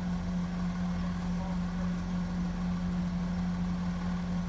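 Garbage truck's diesel engine idling steadily, a constant low drone.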